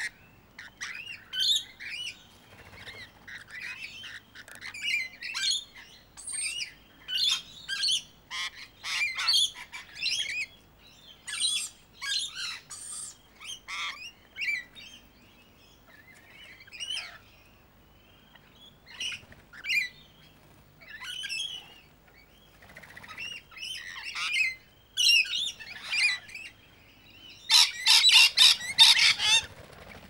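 Rainbow lorikeets chattering and screeching in a flock, in short scattered calls, with a loud run of rapid harsh screeches near the end.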